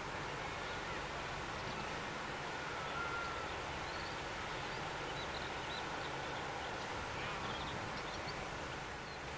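Steady outdoor background noise: a low rumble under an even hiss, with faint short chirps scattered through it.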